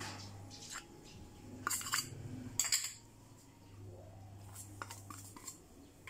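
A metal spoon clinking and scraping against a stainless steel mixing bowl and a small glass bowl while stirring flour into cauliflower florets. The clinks come in short bunches, loudest about two to three seconds in.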